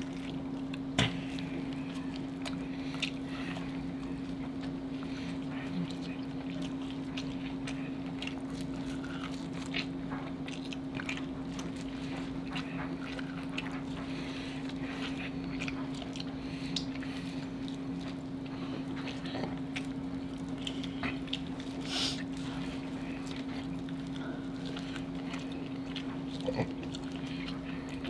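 Close-up eating sounds: two people chewing and biting into sauced corn on the cob and seafood, with many small wet mouth clicks and smacks scattered through, over a steady low hum.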